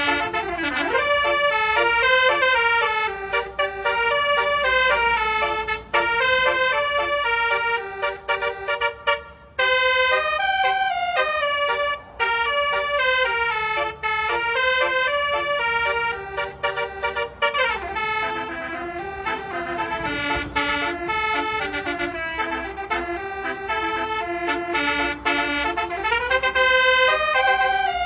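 Basuri (telolet) musical horn playing a melody: a run of loud horn notes stepping up and down in pitch, some sliding between notes, with short breaks between phrases.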